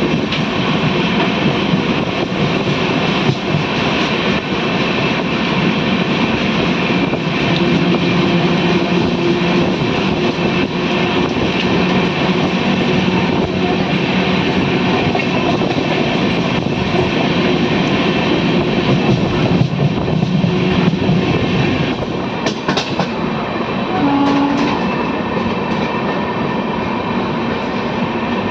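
Shatabdi Express train running on the rails: a steady, loud rumble with wheel clatter and a few low hums.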